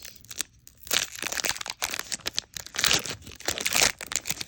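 Foil wrapper of a Pokémon trading-card booster pack crinkling and tearing open, a dense run of crackles and rustles, loudest near the end.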